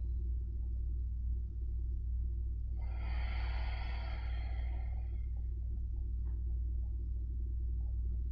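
A long, audible breath out through the nose or mouth, starting about three seconds in and lasting about two seconds, over a steady low room rumble.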